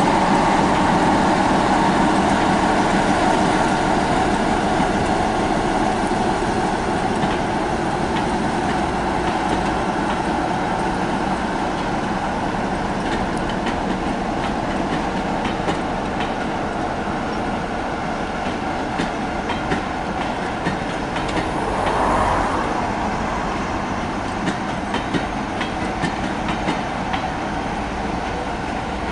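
BR Class 45 'Peak' diesel locomotive's Sulzer engine running under power as it hauls a train of coaches away, its drone slowly fading as it recedes. The clickety-clack of the coach wheels over rail joints grows plainer in the second half as the carriages pass.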